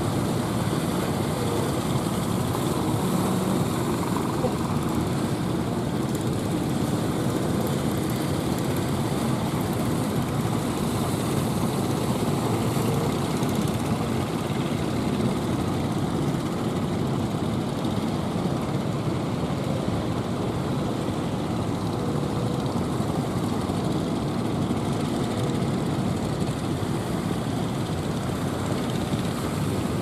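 Steady rushing roar of strong onshore wind and breaking surf, unbroken and even in level throughout.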